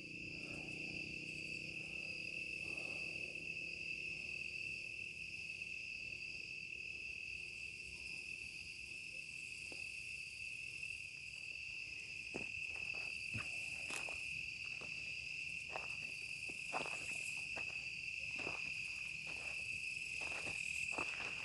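Night chorus of crickets: a steady high-pitched trill, with a scattered run of faint clicks in the second half.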